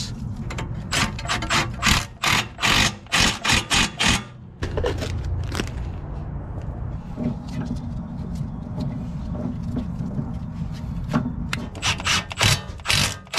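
Ratchet wrench worked in quick strokes, a fast run of sharp rasping clicks, as the tie-rod lock nut is tightened. A low steady hum follows for several seconds, and near the end another quick run of ratcheting clicks.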